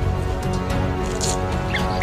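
Background music with sustained tones; short high chirps, like bird calls, come in near the end.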